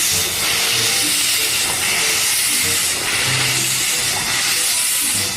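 A loud, steady hiss that holds even throughout, with no rhythm, over faint background music.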